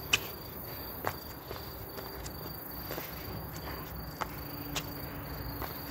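Running shoes tapping and scuffing on brick paving as the feet land during a plank-position floor exercise: about seven sharp taps, the loudest right at the start. Under them runs a steady high chirring of night insects.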